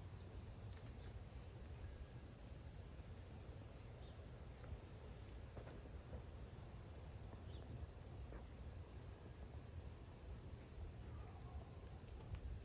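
Steady, high-pitched chorus of insects trilling without a break, over a faint low background rumble.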